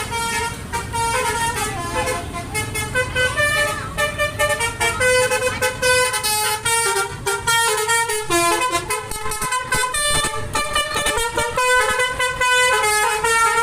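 Indonesian bus 'telolet' horn, a multi-tone musical air horn, playing a quick melody of changing notes, several a second, without a break. A low engine rumble runs underneath.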